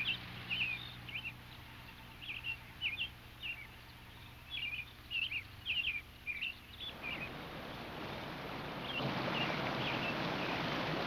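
Small birds chirping in short, quick calls for the first seven seconds or so, then the rush of a river running over rocks swells in and grows louder, covering them.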